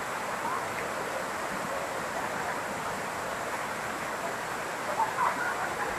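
Waterfall: water pouring down a rock face with a steady, even rush.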